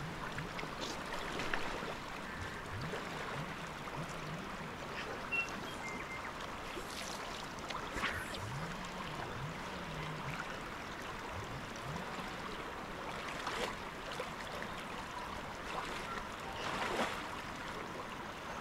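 Shallow river running over a stony bed: a steady rushing and rippling of water, with a few brief louder moments.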